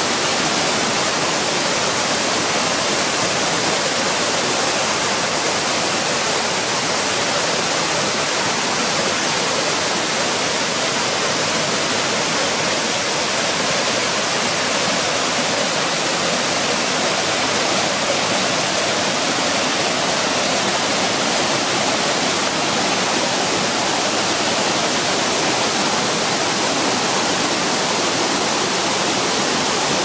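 Waterfall and the mountain stream below it rushing over rocks: a steady, loud, unbroken hiss of falling water.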